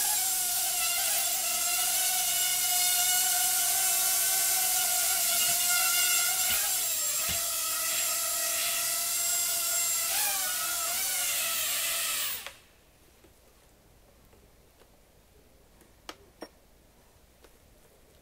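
Hubsan H107D micro quadcopter's four small coreless motors and propellers whining with a steady high pitch and hiss, the pitch dipping and recovering a few times with throttle changes. About two-thirds of the way through the motors cut off suddenly, leaving near silence with a couple of faint clicks.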